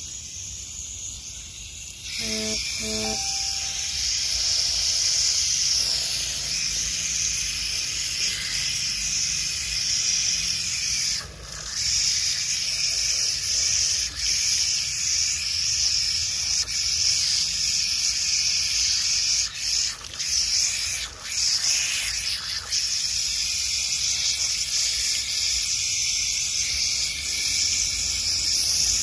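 Running water pouring onto and through a foam air-filter element as it is rinsed and squeezed by hand, a steady splashing hiss that starts about two seconds in after a brief squeak and dips for a moment a few times as the flow is interrupted.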